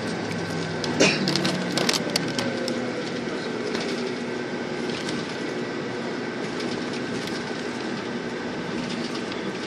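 Inside a moving vehicle: steady engine and road noise with a faint hum, and a burst of rattles and knocks between about one and two and a half seconds in, the loudest about a second in.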